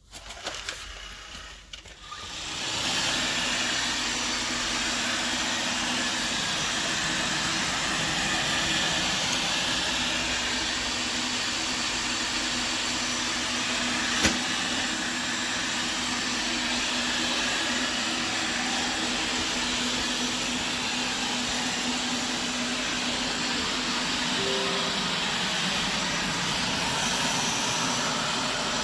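Robot vacuum cleaner running: its motor comes up about two and a half seconds in and then runs as a steady whirring noise with a constant low hum, with a single click about halfway through.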